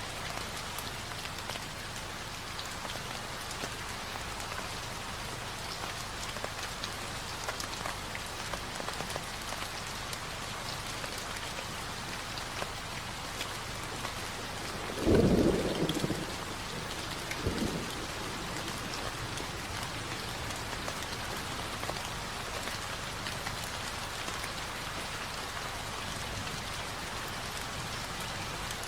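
Steady rain falling, with thunder about halfway through: a loud low rumble lasting about a second, then a shorter, fainter one a couple of seconds later.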